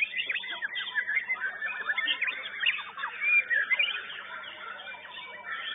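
White-rumped shama (murai batu) singing a fast, varied contest song of sharp whistles, chips and quick up-and-down glides, easing off slightly near the end.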